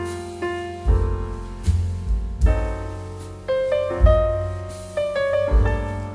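Background piano music: a melody over low bass notes, each note struck and then fading.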